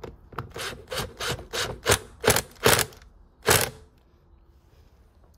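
Ratchet on a long socket extension tightening the screws of a plastic air filter housing: a run of about nine quick ratcheting strokes, roughly three a second, stopping about four seconds in.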